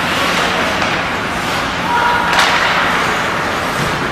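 Ice hockey play on a rink: steady arena and ice noise with one sharp knock about two and a half seconds in.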